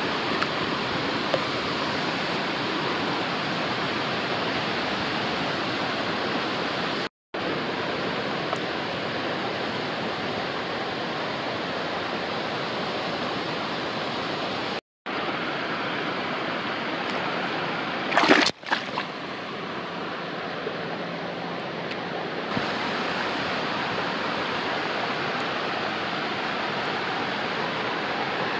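Steady rush of flowing river water around the wading angler, with a short loud burst about two-thirds of the way through and two brief dropouts where the sound cuts out.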